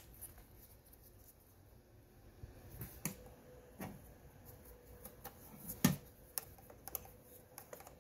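Faint, scattered clicks and taps of a clip-removal tool and screwdriver prying plastic push clips out of an engine's intake-manifold cover. It is quiet for the first couple of seconds, and the loudest click comes about six seconds in.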